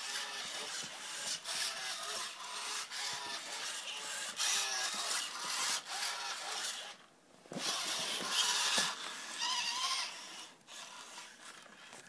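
Genibo QD robot dog acting out a teary emotion routine: its servo motors whir and grind as it moves, under short, repeated crying sound effects from its speaker. Everything pauses briefly about seven seconds in.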